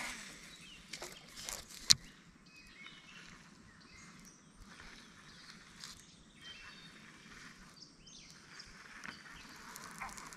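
Quiet outdoor ambience with faint high chirps over a low steady hiss, broken by a few sharp clicks in the first two seconds, the loudest about two seconds in.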